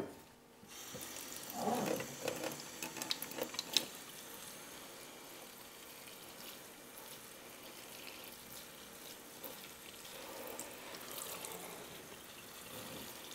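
Kitchen faucet running, its pull-down spray head watering a potted plant in a stainless steel sink: a steady wash of water, with a few knocks and clinks in the first few seconds.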